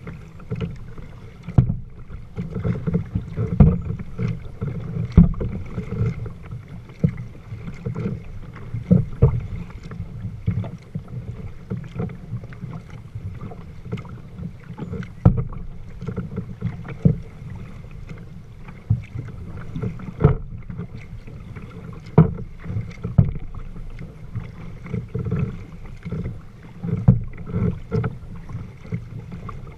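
Water slapping and splashing against the hull of a moving kayak, with irregular sharp knocks every second or two over a steady low rumble.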